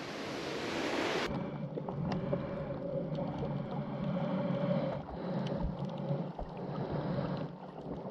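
About a second of open-air wind hiss, then a cut to muffled sound recorded with the camera under water: a dull low rumble with a faint steady hum and scattered small clicks.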